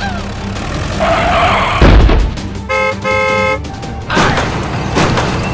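Two short horn beeps, a vehicle honk, about three seconds in, preceded by a loud thump a little before.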